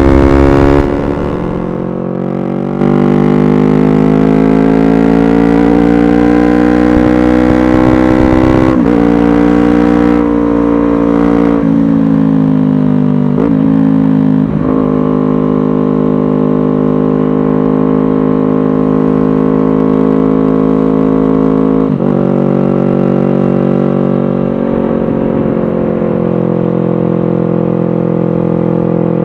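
Kawasaki Ninja 250 parallel-twin engine running through an aftermarket 3Tech Tridente F22 silencer and stainless header. The exhaust note is loud and steady, and it changes pitch in steps several times. It drops in level briefly about a second in and comes back up about three seconds in.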